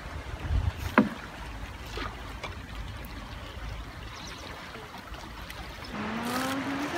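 River water trickling and flowing around a bamboo raft, with one sharp knock about a second in. Near the end the water grows louder as the raft reaches a small weir, and a voice calls out on a long rising note.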